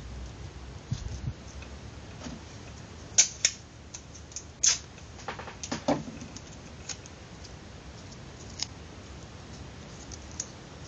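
Handling noise of small parts on a tabletop: scattered sharp clicks and taps, the loudest coming about three to five seconds in, with a few fainter ticks after.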